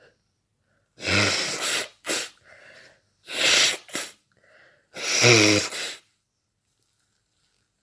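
A person sneezing three times in quick succession, about two seconds apart, with soft breaths between: a sneezing fit while unwell.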